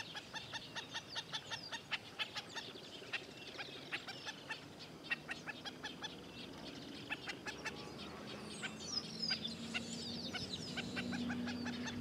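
Black-necked stilts giving short, sharp alarm calls over and over, several a second: agitated birds with a chick nearby. Higher, falling calls join about two-thirds of the way in.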